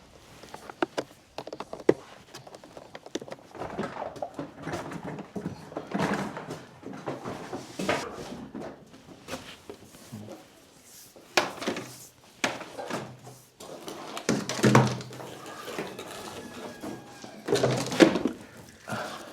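Irregular knocks, thuds and clunks of things being handled and moved, with a few louder clunks spread through.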